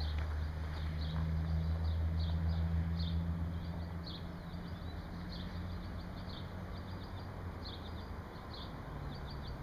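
Steady low outdoor hum with short, high chirps of small birds scattered through it. The hum is strongest in the first few seconds and then eases.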